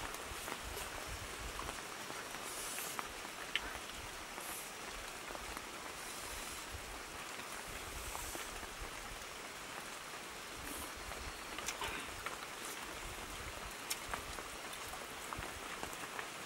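Steady, even hiss of background noise, with a few faint ticks and taps from eating by hand.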